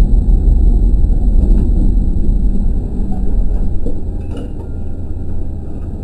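KiHa 40 diesel railcar rumbling as it slows at a station. The rumble fades about three to four seconds in as the train comes to a stop, and a few faint clicks follow.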